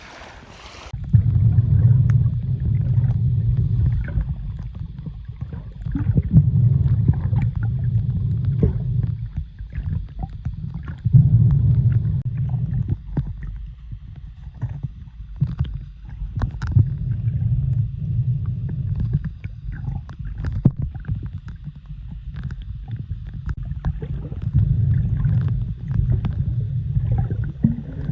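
Muffled low rumble of moving water that swells and fades every few seconds, with scattered small clicks and gurgles.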